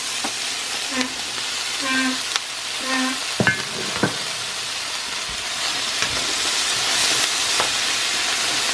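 Vegetables sizzling in hot oil in a stainless steel frying pan, a steady hiss. Two sharp knocks come about three and a half and four seconds in as chopped zucchini is tipped in. The sizzle grows a little stronger near the end as the vegetables are stirred.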